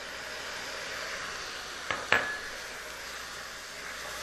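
Balsamic vinegar sizzling in a hot stainless steel sauté pan of sliced bell peppers and onion, a steady hiss. About two seconds in, two sharp clinks against the pan, the second ringing briefly.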